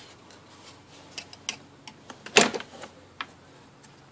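Scattered small clicks and taps of hands working rubber hoses and plastic fittings off a generator carburetor, with one louder knock about halfway through.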